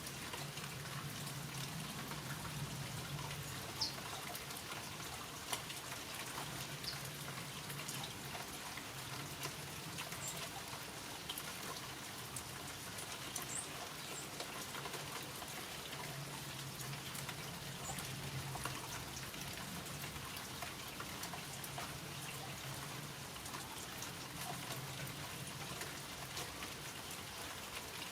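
Rain falling: a steady hiss with many small drop taps, and a low hum that swells and fades every few seconds.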